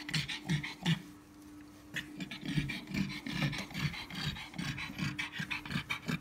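Black pug panting rapidly in quick short breaths, about three a second, while whelping her first litter. Towel rustles as gloved hands handle her.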